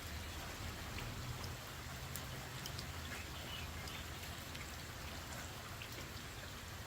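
Steady light rain, with many small drops pattering and splashing into a puddle.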